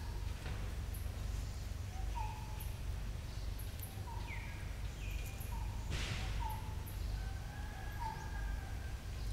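Outdoor ambience: short chirping calls recurring every second or so, one of them a falling whistle, over a steady low rumble, with a brief noise about six seconds in.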